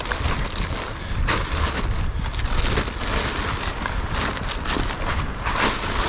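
Wind buffeting the microphone: a continuous rushing noise with a heavy low rumble that swells and eases in irregular gusts.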